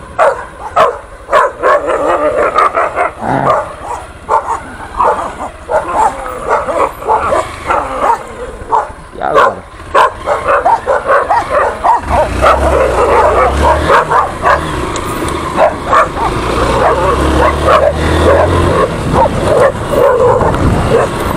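Two agitated dogs barking and yipping rapidly, over and over. About twelve seconds in, the low running of a Honda XRE 190's single-cylinder engine comes in under the barking as the motorcycle moves off.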